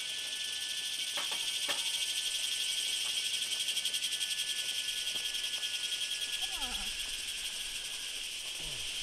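A steady, high-pitched chorus of calling animals, made of fast, even pulses, swelling in the middle and easing off near the end.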